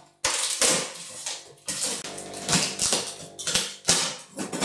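Packing tape on a large cardboard box being slit with a knife and ripped off as the flaps are pulled open: a run of uneven ripping, scraping and rustling bursts.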